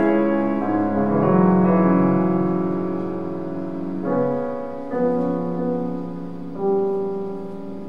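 Grand piano played solo: sustained chords ring and slowly fade, with fresh chords struck about four, five and six and a half seconds in.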